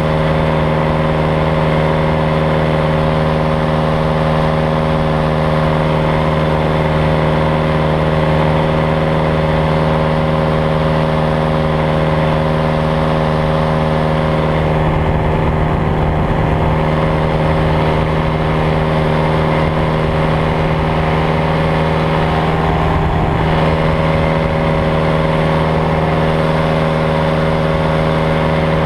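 Engine and propeller of an open weight-shift ultralight trike running at a steady cruise setting, a constant loud drone. Wind rumbles on the microphone about halfway through.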